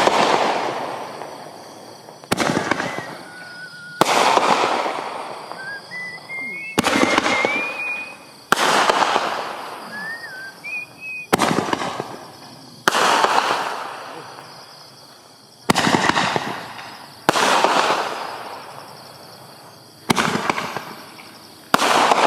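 Consumer firework cakes from a sampler box firing in a display: about eleven sharp bangs, one every two seconds or so, often in pairs, each followed by a long fading tail of noise.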